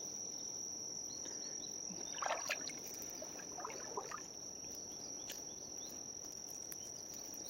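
Insects, crickets by their tag, keep up a steady high-pitched drone. Brief splashes about two and four seconds in come from a small, lively hooked fish being reeled in at the surface.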